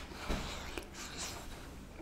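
Close-miked mouth sounds of eating a hot spoonful of chips in gravy with stringy melted mozzarella: a soft knock near the start, then an airy hiss about a second in.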